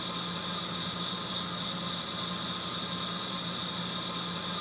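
A steady whirring hiss with a low hum underneath, unchanging throughout.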